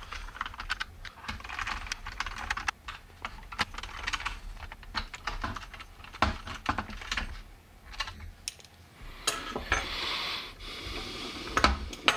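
Small screws being driven into the plastic back case of a Radiomaster Boxer radio controller with a precision screwdriver: a run of quick light clicks and ticks, with a scratchy stretch about ten seconds in.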